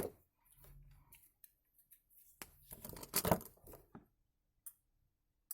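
Small handling noises of wires and plastic plug parts being positioned for soldering: sharp clicks, with a cluster of scratchy rustles and ticks in the middle.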